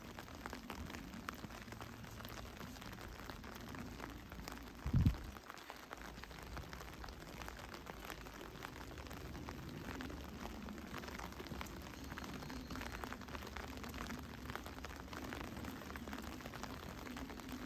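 Heavy rain falling, heard as a steady hiss of many small drop ticks over a faint low rumble. One dull, low thump about five seconds in.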